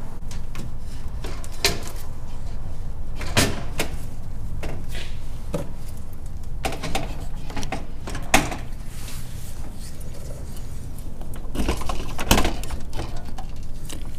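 Aluminum radiator being worked into place against the radiator support: irregular knocks and clunks as it is handled and seated, over a steady low hum.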